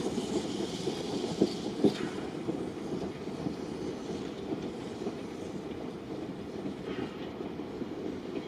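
Steel train wheels rolling on rail track, a steady rumble with sharp clicks over the rail joints; two loud clicks come close together about one and a half seconds in.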